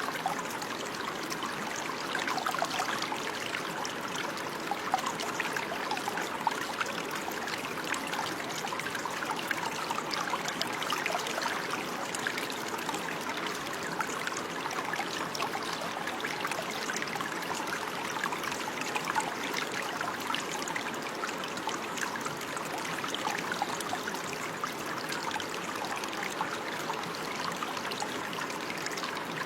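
Running water: a small stream trickling and burbling steadily, with fine splashy flickers throughout.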